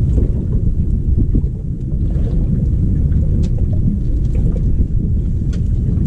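Wind buffeting the microphone on an open boat: a steady, ragged low rumble, with a few faint ticks above it.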